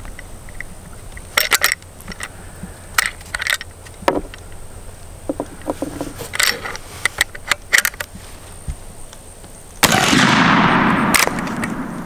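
Metallic clicks and clacks of a lever-action rifle being handled and cycled, then about ten seconds in a single loud shot from a Marlin 1895 .45-70 firing a homemade black powder cartridge, with a long fading echo.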